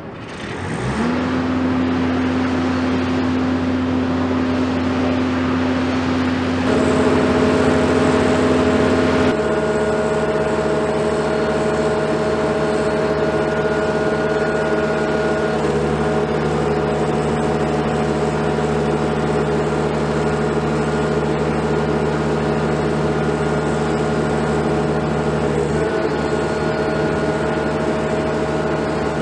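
Engine of a large wheeled gantry boat hoist (travel lift) carrying a yacht, running up about a second in and then driving steadily with a constant whine. Its note steps higher about seven seconds in and shifts again a couple of seconds later.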